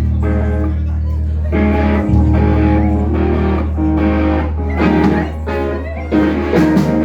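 Amplified band music: electric guitar playing over long, held bass notes that change about every three seconds, played through the PA during a sound check.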